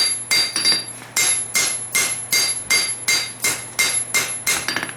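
Hammer blows drawing out and thinning a hot annealed farrier rasp on an anvil, about three strikes a second. Each blow is sharp and leaves a brief metallic ring.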